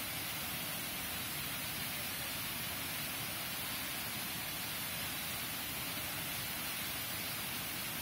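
Monsoon-fed waterfall cascading over rock ledges into a pool: a steady, even rush of water.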